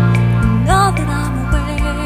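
Background pop song: a singer holds a gliding note over sustained chords, bass and a steady beat.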